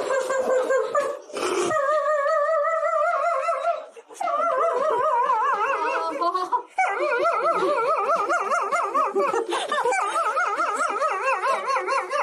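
A dog howling in long, warbling howls whose pitch wobbles rapidly. There are about four howls in a row with brief breaks between them.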